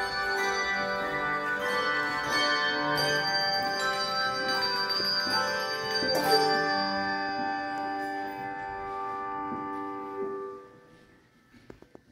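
A handbell choir ringing chords, the struck notes ringing on and overlapping. The ringing dies away about ten and a half seconds in, leaving a brief near-silent pause.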